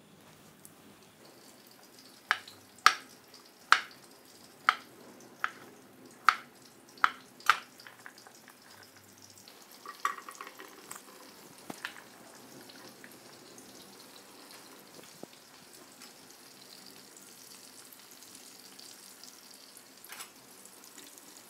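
Zucchini frying in a pan of oil: a steady sizzle that builds from about halfway through. Before it, a run of about eight sharp clicks comes roughly one a second.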